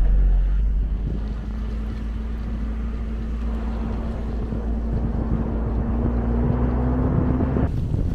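Vehicle on the move: a steady engine drone with road and wind noise, the engine note climbing slightly. The sound changes abruptly near the end.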